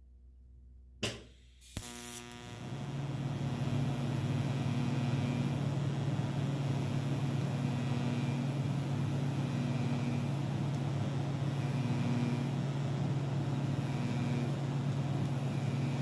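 Welding arc on steel frame tubing: a steady buzzing hum with hiss that starts about two and a half seconds in, after a single click, and runs on evenly.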